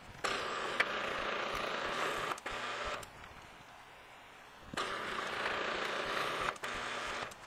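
Drill bit in a milling machine's drill chuck cutting down through a metal plate, two holes in turn. The cutting noise runs for nearly three seconds, stops, and starts again about two seconds later for another two and a half seconds.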